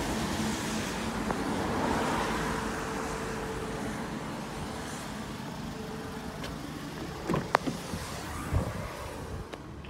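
Steady vehicle and road-traffic hum, slowly fading. About seven and a half seconds in, a few sharp clicks and knocks come as the rear door of a 2005 Toyota Scion is unlatched and swung open.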